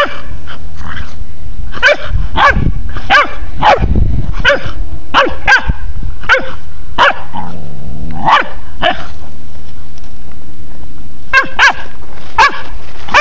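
A Pharaoh hound puppy barking in sharp, high yaps, about fifteen of them in irregular bursts with a pause about two-thirds of the way in.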